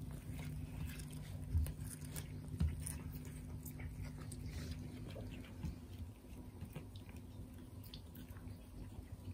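Several cats biting and chewing fresh cat grass, a quick, irregular crunching and tearing of the blades. There are two low thumps early on, and a steady low hum underneath.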